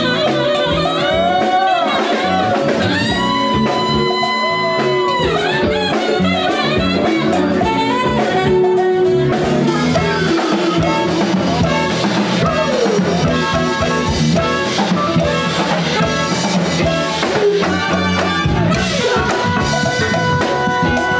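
Live band playing: drum kit, electric guitar, bass and keyboard under long held, wavering saxophone and vocal lines.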